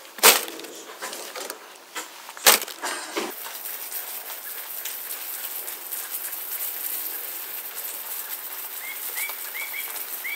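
Dry leaves crackling into a plastic bucket in two sharp handfuls, then a garden hose spray nozzle giving a steady hiss of water. A few short rising bird chirps come near the end.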